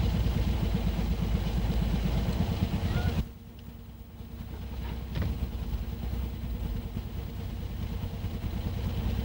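Diesel railcar engine running, a deep pulsing rumble. It drops away abruptly about three seconds in, then builds back up.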